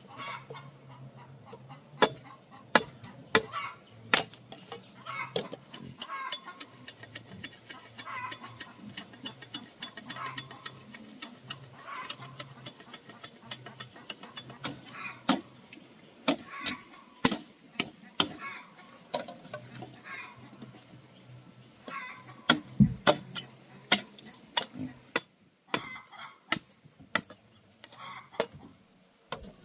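Domestic poultry, goose-like, calling in short honks about every one to two seconds, among a steady scatter of sharp knocks or chopping strokes.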